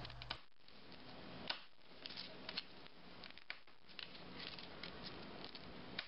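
Faint, irregular small clicks and ticks of pressure flaking: a flat-head screwdriver tip pressing tiny flakes off the edge of a stone bladelet to shape a microlithic barb.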